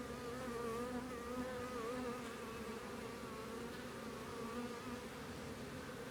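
A swarm of honeybees buzzing in a steady hum whose pitch wavers gently.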